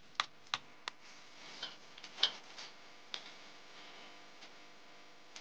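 Hot oil steaming in a wok, crackling: a faint hiss with about seven sharp pops, most of them in the first three seconds.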